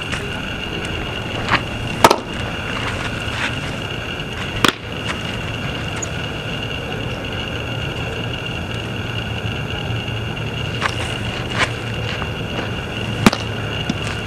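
Pitched ball smacking into a catcher's mitt a few times, sharp single impacts with the loudest about two seconds in, over a steady background hum with a faint high whine.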